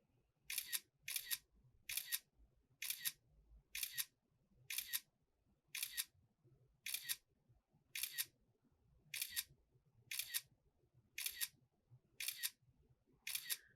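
Camera shutter sound repeated about once a second, fourteen clicks in a steady row, each a quick double click. These are single frames being shot for a stop-motion animation.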